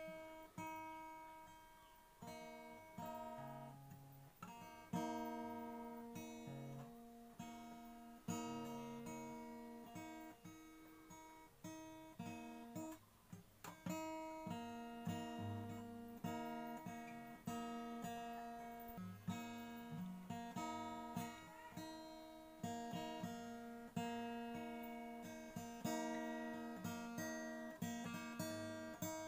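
Cutaway acoustic guitar played by hand: plucked notes and chords follow one another without a break, each ringing and fading before the next.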